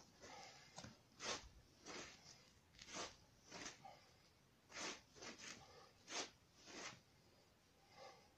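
A sledgehammer workout: a string of short, rough bursts of noise from the man's swings and forceful breathing, coming roughly in pairs about a second apart.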